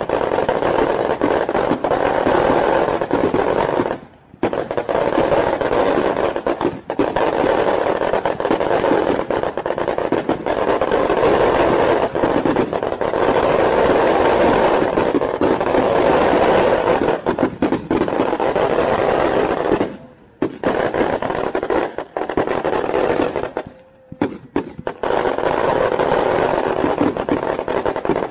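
Fireworks going off in rapid succession: ground-launched skyrockets and firecrackers make a dense, continuous crackle that breaks off briefly a few times.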